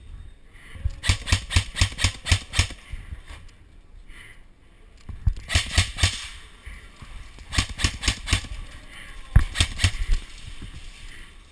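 Airsoft rifle firing four strings of quick single shots, each a run of sharp cracks at about four to five a second.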